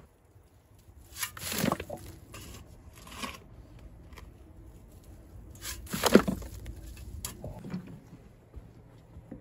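Shovel-and-wheelbarrow work in loose earth: a handful of short scraping, crunching sounds of soil and a metal wheelbarrow, the two loudest about a second and a half in and about six seconds in.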